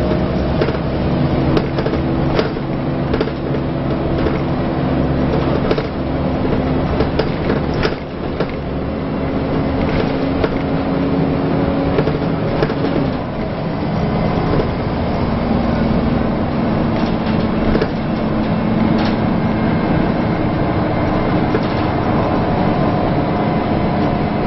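Inside a Scania L94UA Wright Solar Fusion articulated bus under way: the steady drone of its diesel engine and ZF automatic gearbox. The engine note drops to a lower pitch about thirteen seconds in, and the body gives frequent rattles and knocks throughout.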